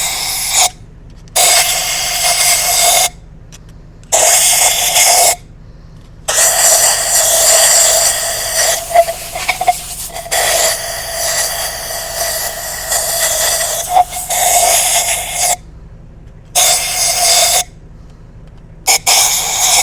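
Compressed-air blow gun blasting dust out of drilled holes in concrete, in repeated bursts of hissing air from under a second to several seconds long, with a faint steady whistle in the hiss.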